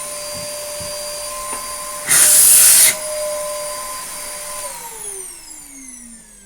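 Hitachi Stowaway CV-7405 cylinder vacuum cleaner running with a steady motor whine, with a loud, brief rushing burst about two seconds in. Near the end the motor is switched off and winds down, its whine falling steadily in pitch.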